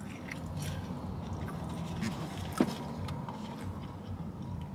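Eating sounds: chewing and a fork picking through a takeout burrito bowl, with scattered small clicks and one sharp click about two and a half seconds in, over a steady low hum.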